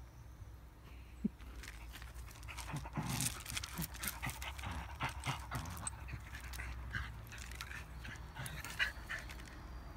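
A young beagle dog panting while it chews and worries a sponge-headed glass-cleaning brush, with many scattered crackles and clicks of its teeth on the brush and paws shifting on gravel.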